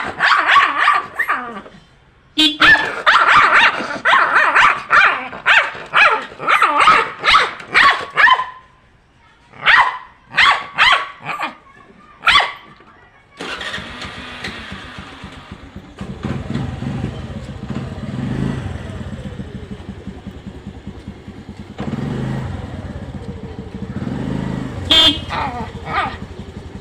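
Dog barking angrily in rapid volleys for about the first twelve seconds. Then a vehicle engine runs steadily, with a short loud sound near the end.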